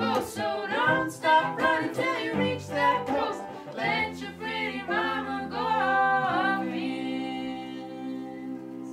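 A man and a woman singing in two-part harmony over cello and banjo; about six seconds in they settle on a long held closing note.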